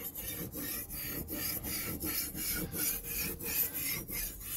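Steel kitchen knife blade stroked back and forth on a wet sharpening stone: a steady rasping scrape, about three strokes a second, grinding one side of the edge until a burr forms along its length.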